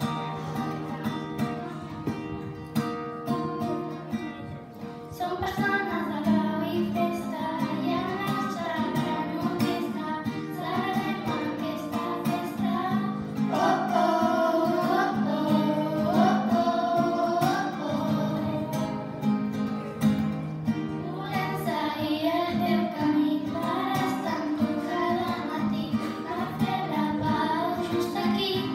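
A group of girls singing a pop song in unison through handheld microphones over an instrumental accompaniment. The accompaniment plays alone for about five seconds before the voices come in.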